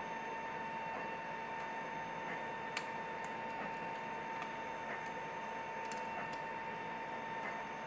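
A few faint, scattered clicks from lock picking tools working the pins of a Lockwood 334B45 padlock as the pins are set, over a steady high hum and hiss.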